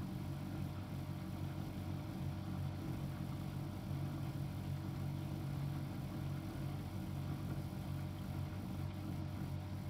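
Miele Novotronic W715 front-loading washing machine running with a steady motor hum as its drum turns a double duvet during an extra rinse.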